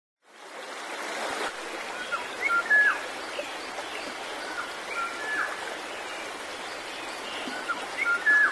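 Running water of a stream with short, high, whistled chirps that come in small groups, loudest about three seconds in and near the end.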